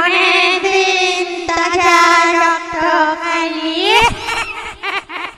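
A high-pitched singing voice holding one long note with vibrato, swooping up in pitch about four seconds in, then breaking into short choppy notes.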